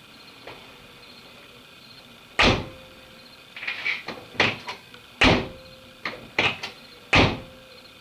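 VW Beetle-based Baja Bug door being shut three times, each a solid slam, with smaller latch and handle clicks in between as it is opened again. The door is being tried after a flat-washer shim went in behind its loose-pinned hinge, which had left it banging into the striker plate.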